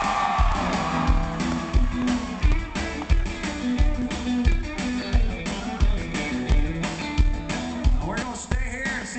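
Live country band playing loud: electric guitar over a repeating bass line and a steady kick drum, about one and a half beats a second.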